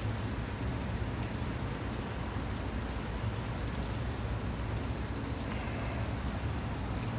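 Steady storm noise of wind and rain, with a constant low rumble.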